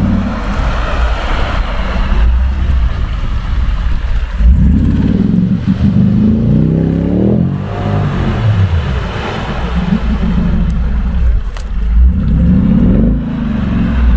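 Mercedes-Benz G-Class 5.0-litre V8 revving hard in repeated surges as the vehicle ploughs through deep mud, wheels spinning and flinging mud. The longest surge climbs in pitch for about three seconds in the middle, then drops away.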